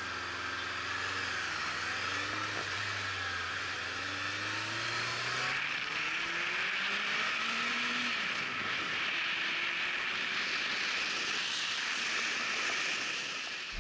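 Motorcycle riding, with a steady rush of wind over the microphone and the engine note climbing in several slow rises as the bike accelerates.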